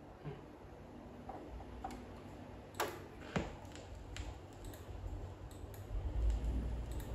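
Stylus of an Audio-Technica turntable tracking the lead-in groove of a vinyl LP: faint surface hiss with scattered clicks and pops, two of them sharper about three seconds in, and a low rumble building near the end just before the music begins.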